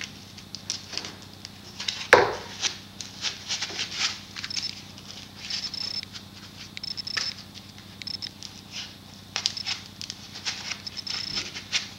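Pool-noodle foam being squeezed and rubbed as an offcut is worked down into the end of a foam noodle: a run of short, irregular rubbing and handling noises, the loudest about two seconds in.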